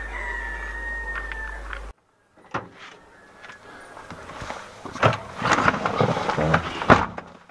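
Knocks, clunks and rustling of a man climbing into a car's driver seat through the open door and handling things inside, the loudest clunks about five and seven seconds in. Before that, about two seconds of outdoor sound with a thin steady tone ends in a sudden cut.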